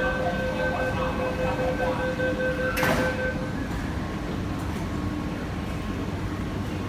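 Metro train doors closing: a steady two-tone warning beep sounds for about three seconds, and the doors shut with a knock near its end. A steady low rumble of the standing train continues.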